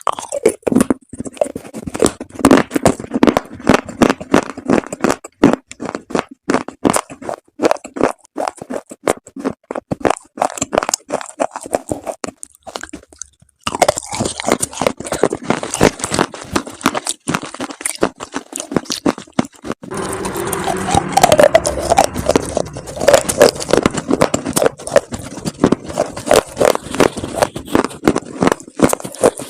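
Dried chalk paste being crunched and crumbled: a dense run of crisp cracks and scraping crumbles. The crunching breaks off briefly a little before halfway, and is louder and denser in the last third.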